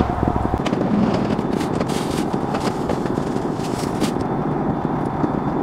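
Grocery orders being loaded onto a car's back seat: plastic bags rustling and boxes knocking down in scattered clicks and thumps over a steady hiss.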